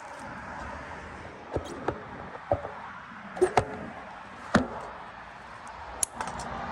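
Sharp knocks and cracks of cut wood and branches being handled, about seven irregularly spaced strikes over a steady background hiss.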